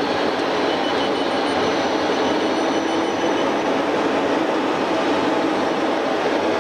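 Yak-40 jet in level flight, heard from inside: a steady rushing drone of engines and airflow that stays even throughout.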